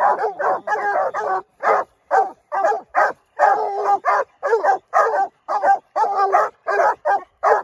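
Pack of coonhounds baying and barking at an animal caught in a wire cage trap: loud, rapid, overlapping barks from several dogs, about two to three a second.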